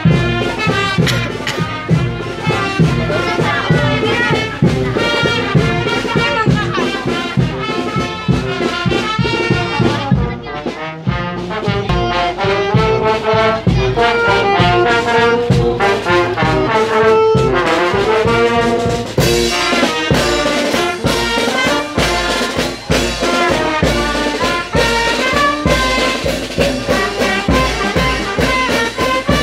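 Marching brass band playing a tune: trumpets, trombones, saxophone and sousaphone over a steady drumbeat. The beat drops out for a moment about ten seconds in.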